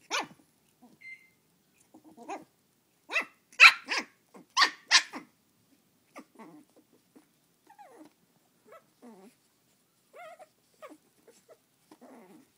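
Shih tzu puppy barking in short sharp yaps, about six loud barks in the first five seconds, then fainter, scattered short sounds.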